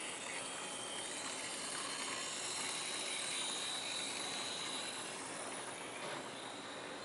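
Tiny electric motor of an N-scale car-system model bus running along the layout road: a steady high-pitched whine that fades near the end.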